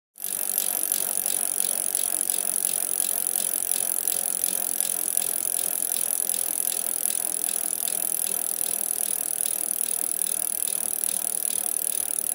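Racing bicycle running at speed: a steady whirring hiss with fast, even mechanical ticking. It starts and stops abruptly.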